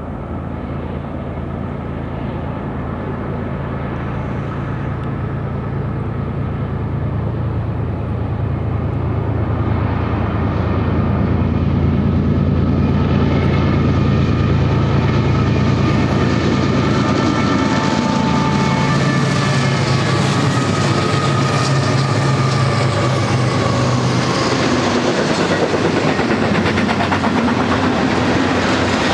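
GE ES44C4-led diesel locomotives approaching and passing with a double-stack intermodal train, their engines' low drone growing louder over the first dozen seconds. About three-quarters of the way in the engine drone drops away and the steady rumble and clatter of the stack cars' wheels on the rails takes over.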